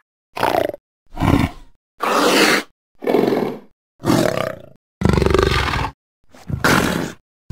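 Fan-made Indoraptor creature sound effects: a series of about seven short roars and growls, each under a second long and separated by brief silences, with the last one the longest.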